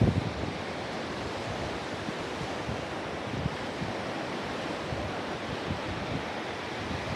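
Sea surf washing steadily onto the beach, with wind buffeting the microphone in low rumbles, the strongest right at the start.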